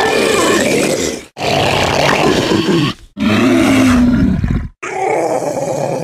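Utahraptor creature sound effect, mixed from animal and monster-library recordings: a string of loud, raspy roars, each about one and a half seconds long with brief breaks between, four in all.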